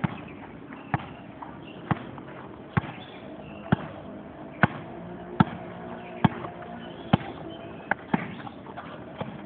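A basketball being dribbled, bouncing in an even rhythm about once a second.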